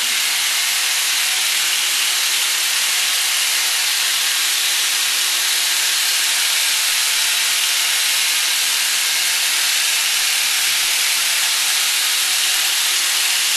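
Home-built pulse motor running steadily off a car battery with inverters under full load: an even, unbroken rushing hiss with a faint low hum underneath, holding speed without slowing.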